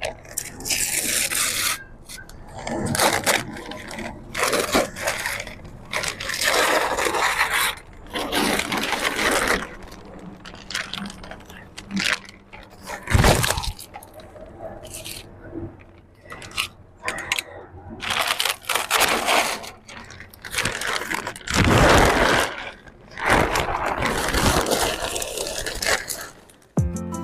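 Irregular scraping and rubbing from hand work on a boat window, fitting an acrylic pane into its sealant-lined frame, with two sharp knocks, one about halfway through and one past two thirds.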